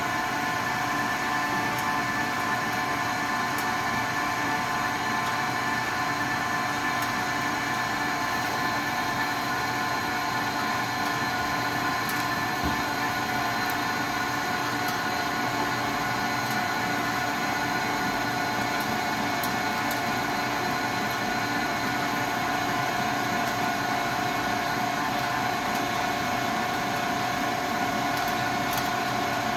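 A 9-inch two-roller, 10 hp three-phase electric pellet mill running steadily with an even mechanical hum and whine. It is pressing ground sticks and twigs through a 6 mm die into wood pellets.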